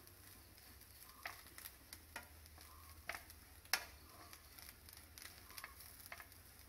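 Wooden spatula stirring grated coconut as it dry-roasts in a nonstick frying pan: soft scraping with irregular light taps of the spatula against the pan, the sharpest about three and a half seconds in.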